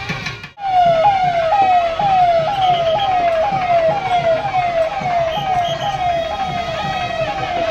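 Electronic siren of a police escort vehicle, sounding a falling tone that snaps back up and repeats about twice a second, starting about half a second in.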